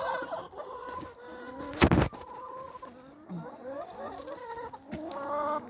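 Several hens clucking and calling over one another. About two seconds in, a brief loud burst of noise.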